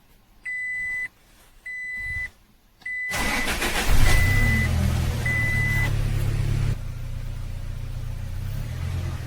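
A vehicle warning beeper sounds five times, about a second apart, while the Toyota Hilux's engine is cranked about three seconds in, catches and settles to a steady idle. It runs with a newly replaced belt-tensioner pulley bearing, without the earlier bearing noise.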